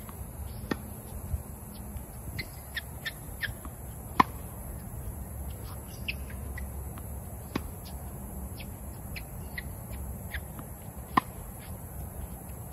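Tennis racket striking the ball with sharp pops, loudest about four seconds in and again near the end, with softer knocks in between. Short bird chirps come and go over a low background rumble.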